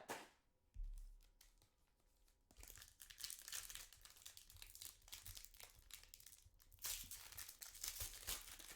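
Crinkling and tearing of trading-card packaging as a hobby box and its wrapped packs are opened by hand, in short crackly spells that get louder near the end. There is a soft thump about a second in.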